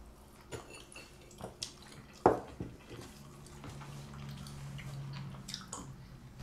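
Quiet meal sounds at a kitchen table: scattered light clicks and knocks of mugs and plates, with one sharper knock about two seconds in. A low steady hum comes in under the second half.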